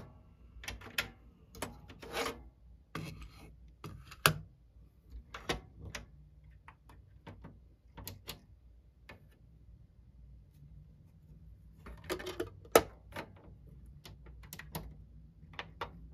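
Plastic buttons on a Sony CFD-S401 CD/cassette boombox clicking as they are pressed, in scattered groups with pauses between; the sharpest clicks come about four seconds in and again near thirteen seconds.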